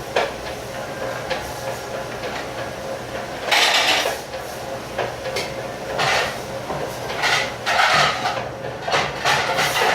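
Dishes and pans clattering in an irregular run of knocks and scrapes over a steady machine hum in a commercial dish pit. The loudest clatter comes about three and a half seconds in, and again several times in the second half.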